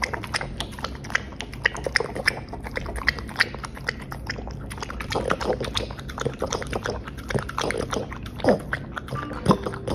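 French bulldog lapping soup and licking a plate clean: quick, wet licking clicks in a rapid, uneven run, with a few louder ones near the end.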